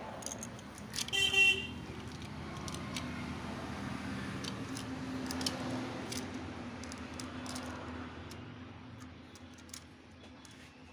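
A short horn toot about a second in. Then a motorcycle engine, the TVS Raider 125's single-cylinder, runs with a steady low hum that swells and then fades, with scattered sharp clicks.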